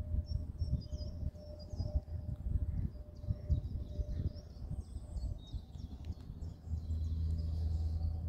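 Small birds chirping over gusty wind rumbling on the microphone, with a faint steady drone underneath from a high, distant jet airliner.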